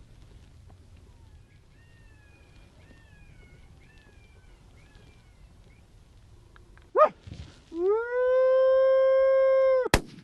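A short yelp, then one loud, steady coyote-style howl of about two seconds that cuts off abruptly with a sharp crack. Faint, quick chirping calls repeat in the first half.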